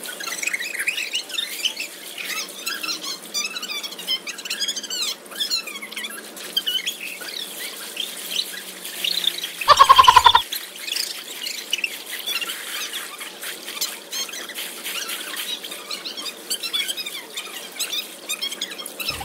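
Small birds chirping and twittering. About ten seconds in there is one short, loud, pitched cry, as a swimmer splashes in the pool.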